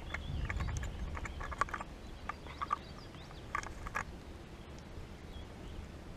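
Scattered small clicks and rustles of handling as a largemouth bass is hung by the lip from a hand-held digital fish scale, with a low rumble at the start; the clicks thin out after about four seconds.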